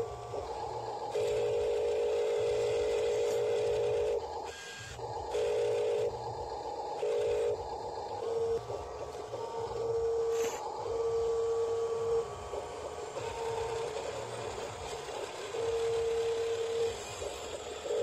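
Huina RC dump truck's electric tipper motor whining in repeated on-off bursts as the tipper bed is worked down and back up. The longest burst comes near the start and runs about three seconds; the rest are shorter.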